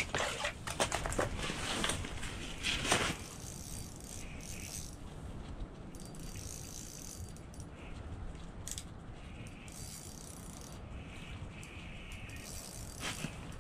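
Ice-fishing reel cranked in quick ratcheting clicks and rattles as a perch is reeled up through the hole. After about three seconds the clicking stops and only faint, soft handling sounds are left.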